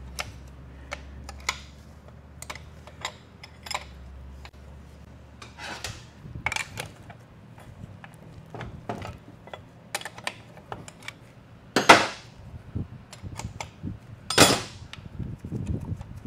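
Hand tools clicking, tapping and scraping against a 4R70W automatic transmission's aluminium case and valve-body linkage as it is taken apart. Two louder metal strikes come near the end, the first about 12 seconds in and the second a couple of seconds later.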